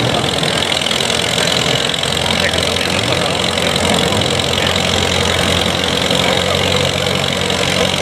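Vintage farm tractor's engine running steadily at low speed as it drags a weight-transfer pulling sled.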